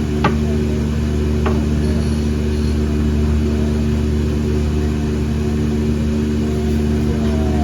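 A steady machine hum made of several fixed tones, with two short sharp clicks in the first second and a half.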